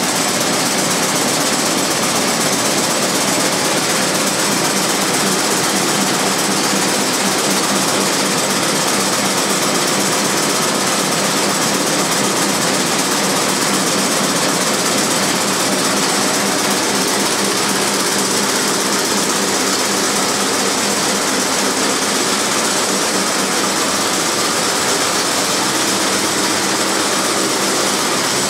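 Warner & Swasey Servo-Drafter pindrafter running steadily as it draws wool sliver, a loud, even mechanical noise with a few constant hums in it.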